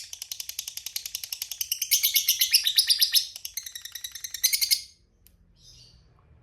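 Lovebird 'ngekek': a long, rapid chattering trill of high chirps, swelling louder around the middle and again just before it stops about five seconds in, followed by a faint single chirp.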